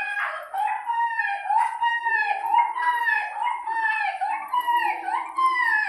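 A dog howling and whining in a continuous run of short rising-and-falling notes, about two a second.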